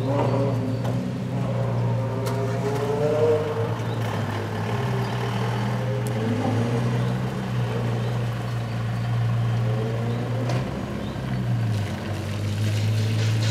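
Ferrari F40's twin-turbo V8 running at low revs as the car creeps along. Its steady low note dips briefly about eleven seconds in, then picks up again.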